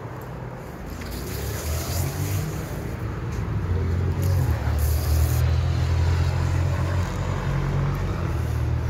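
Low rumble of road traffic from the street below, growing louder over the first half and then holding steady.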